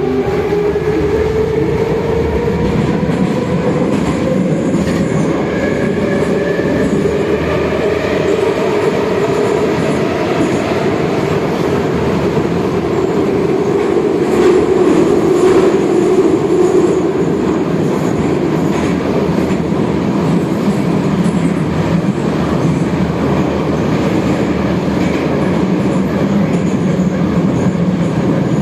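Minsk metro train running through the tunnel between stations. Steady rumble of wheels on rail, with a whine from the traction motors that rises in pitch over the first several seconds and then holds steady.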